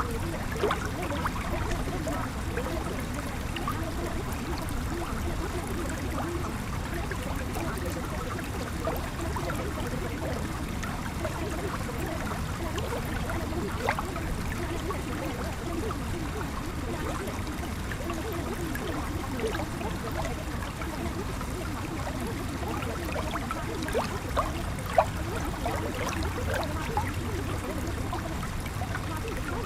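Steady running water, like a flowing stream.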